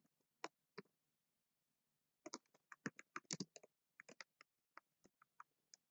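Quiet computer keyboard typing. A few keystrokes come at the start, then a pause of over a second. A quick run of keystrokes follows, then a few scattered ones.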